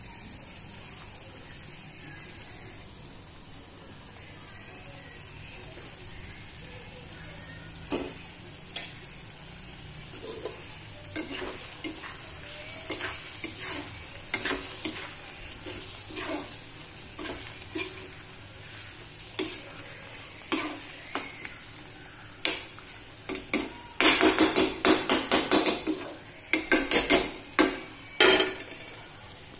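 Spiced curry gravy sizzling in a black kadai, with a spoon scraping and knocking against the pan as it is stirred. The scrapes come now and then at first, then turn into fast, loud runs of stirring near the end.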